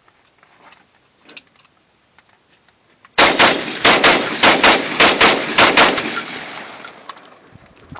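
A rifle fired in a rapid string of about ten shots over roughly three seconds, starting about three seconds in, with the report fading off afterwards.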